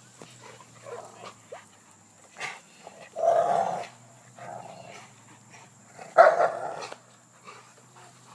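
Dogs tugging and jumping at a fallen tree branch, giving two loud growling barks about three and six seconds in, with fainter short dog sounds between.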